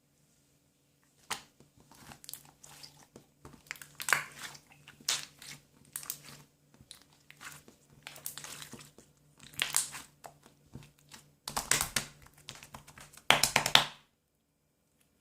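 Green slime being squished and pressed by hand, giving irregular crackling, popping squelches, with the loudest bursts in the last few seconds.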